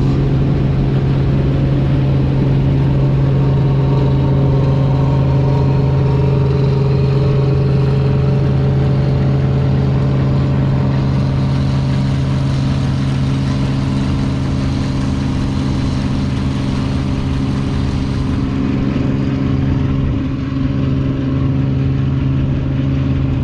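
Claas Dominator 85 combine harvester's engine running steadily at constant working revs, loud, with a strong hum.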